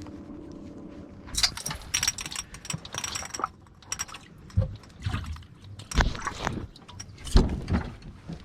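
Handling noises: a run of sharp rattling clicks, then several separate dull knocks. A steady low hum runs under the first second.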